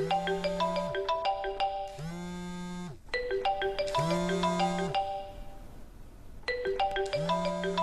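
Mobile phone ringtone: a short marimba-like melody over a held low note, repeating three times about three and a half seconds apart.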